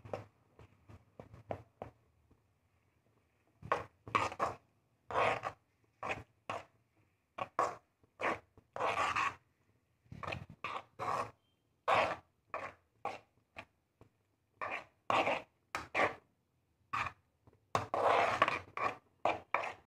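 Metal spatula scraping and stirring scrambled egg with onion around a metal kadai, in short irregular strokes with a brief pause a couple of seconds in.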